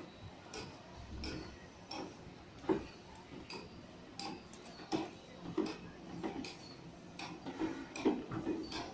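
Brush dabbing liquid waterproofing coating onto fiberglass mesh against concrete, with soft, irregular taps and slaps about one or two a second.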